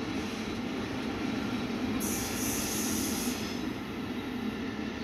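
Container wagons of a freight train rolling away on the track: a steady rumble of wheels on rails, with a high hiss for about a second, about two seconds in.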